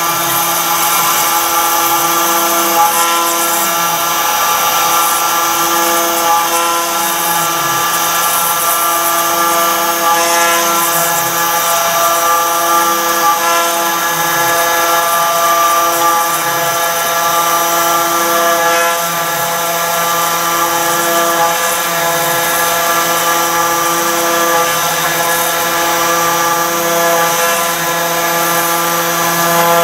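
CNC router spindle and bit cutting wet stone, running steadily at high speed with a high whine. A lower tone sags and recovers about every two seconds as the cut goes on.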